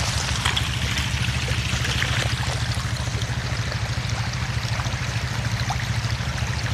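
Shallow floodwater from a beaver dam running and trickling over gravel and stones down a trail, with a steady low hum underneath.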